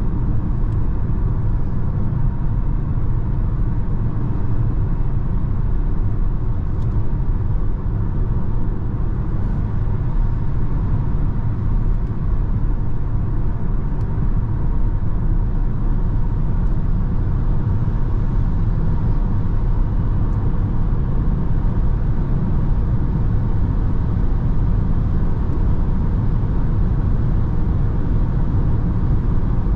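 Steady road and wind noise inside the cabin of a 2022 Peugeot e-2008 electric SUV cruising at motorway speed: a low tyre rumble with a faint steady high tone above it.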